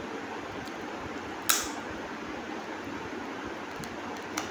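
Steady fan-like background noise, with one sharp click about a second and a half in and a fainter click near the end.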